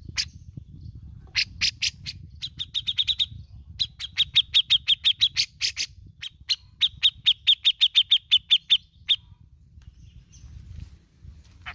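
Cucak jenggot (grey-cheeked bulbul) calling in sharp, quick notes, some single and most in rapid chattering runs of about a second to two seconds each. The calls stop about nine seconds in.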